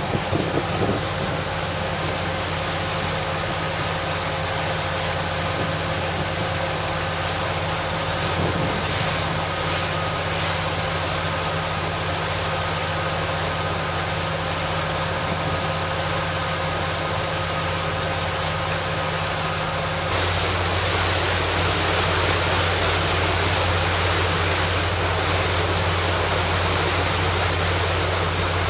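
Motor cruiser's engine running steadily under way, a constant drone under the rush of wind and water. About twenty seconds in, the engine's higher tones drop away and the wind and water rush grows louder.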